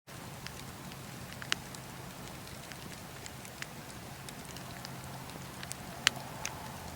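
Wood fire crackling: a steady hiss with scattered sharp pops, the loudest about a second and a half in and twice near six seconds.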